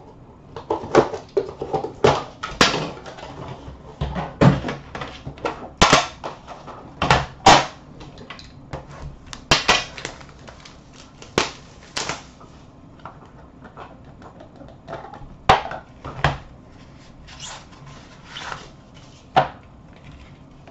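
Plastic shrink-wrap crinkling as it is torn off and crumpled from a card hobby box, mixed with clicks and light knocks as the box's tin lid and cardboard inner box are handled. It comes as irregular sharp rustles throughout, with a sparser stretch in the middle.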